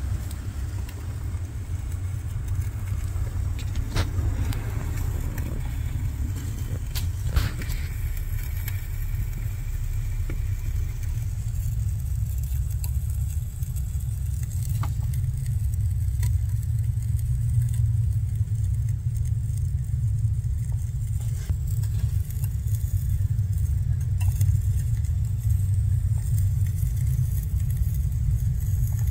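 Water sizzling inside a wet 2003 Ford F-150 GEM (body control module) behind the interior fuse box: water shorting across its circuits, which is energising them with the key out. A steady low rumble runs underneath, with a couple of sharp clicks in the first several seconds.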